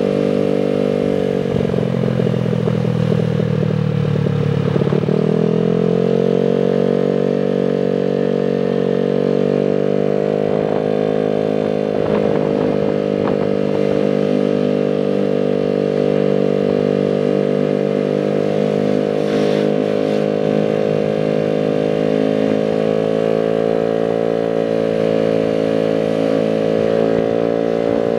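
Single-cylinder four-stroke engine of a Honda Vario 110 scooter bored up to 130cc, running through an aftermarket racing exhaust while being ridden, heard from the rider's seat. The engine note drops away about a second and a half in, climbs back as the scooter accelerates about five seconds in, and then holds a steady cruising note.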